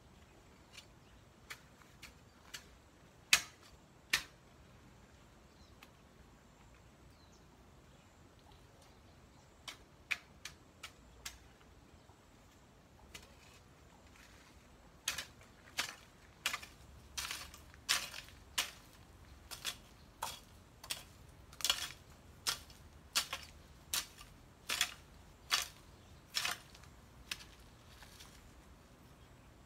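Long bamboo-handled garden tool striking and scraping the soil. There are a few scattered strokes in the first seconds and a short cluster about ten seconds in, then a steady run of about three strokes every two seconds from about fifteen seconds in.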